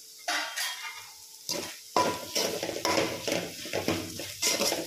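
Slotted metal spoon stirring chopped okra in a metal frying pan, scraping and clinking against the pan while the food sizzles. A couple of single strokes come first, then about two seconds in it turns into continuous, vigorous stirring.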